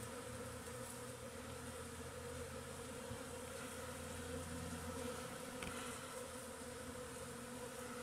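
A swarm of bees buzzing around a blooming bush: many wings together making a steady, even hum.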